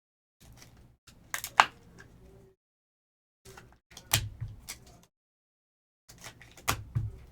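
Trading cards and their packaging being handled on a table: three short spells of rustling, sliding and sharp clicks with silent gaps between, the loudest click about one and a half seconds in.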